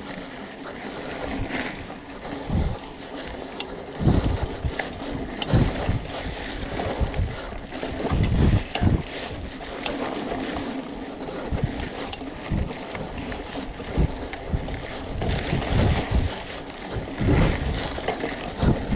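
Wind rushing over the microphone and tyres rolling on a dirt trail as a BMC Twostroke hardtail mountain bike is ridden at speed. Several heavy thumps and rattles come as the bike hits bumps along the way.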